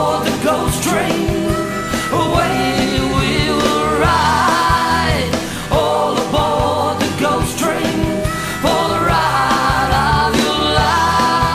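Live rock band playing a song: acoustic and electric guitars over a drum kit, with a melody in phrases of a couple of seconds each.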